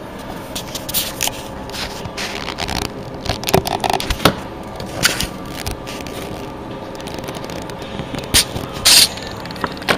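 Scraping, rustling and irregular sharp clicks of a DC wattmeter's leads and plastic power plugs being handled and connected, the loudest scrape near the end.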